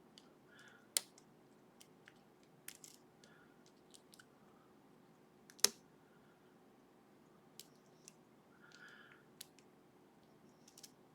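Lock pick and tension wrench working in a sleeved Ruko pin-tumbler lock with barrel drivers: faint scattered clicks and light scraping, with two sharper clicks about a second in and near the middle.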